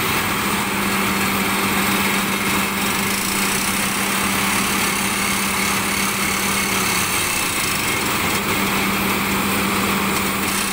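Furukawa FRD HCR910 hydraulic crawler drill rig running loudly while drilling into rock: a steady engine drone under a broad, even hiss and clatter from the drill, unbroken throughout.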